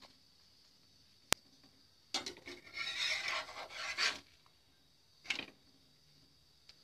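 A sharp click about a second in, then a metal slotted spatula scraping and rubbing a roti across a nonstick frying pan for about two seconds. A brief second scrape follows about a second later.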